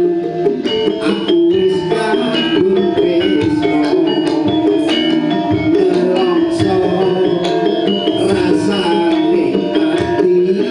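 Campursari music: a Javanese gamelan ensemble playing, with ringing struck metallophone notes over steady drum strokes.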